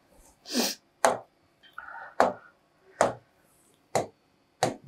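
A stylus tapping sharply on an interactive whiteboard, about once a second, as cells of a drawn scale bar are filled in one by one.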